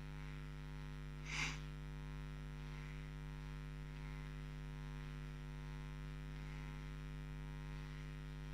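Steady low electrical mains hum, with a single short breath about a second and a half in.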